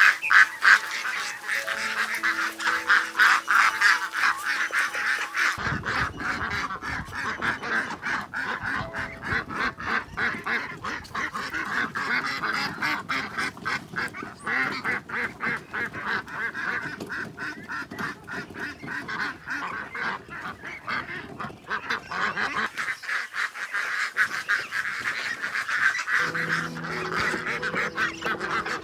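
A large flock of domestic ducks quacking continuously in a dense chorus, with background music over the first few seconds and again near the end.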